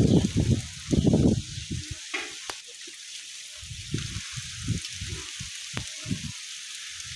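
Steady hiss of heavy rain falling during a storm. Loud low buffeting, like wind on the microphone, fills the first second and a half, and a few softer low thuds follow later.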